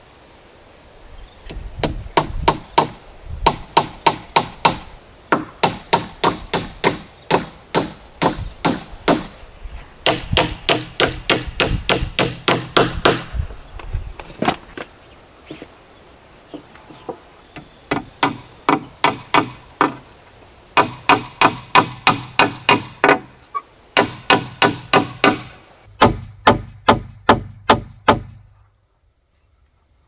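Steel-headed hammer driving nails into a wooden beam: runs of quick, sharp blows, about three a second, with short pauses between nails and a longer break about halfway through.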